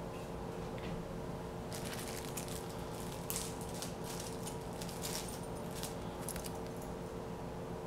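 Thin stainless-steel wind spinner being pulled open by hand, its cut metal layers clicking and ticking against each other in a quick irregular run through the middle, the sharpest click about three seconds in, over a steady low hum.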